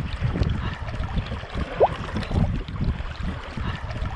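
Choppy sea water sloshing and splashing as a person wades and swims through it, with wind buffeting the microphone. A short rising squeak comes about two seconds in.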